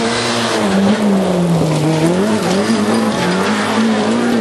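Rally car engine revving hard through a gravel corner: the pitch sags in the middle as the driver lifts off, then climbs and wavers again as it powers away.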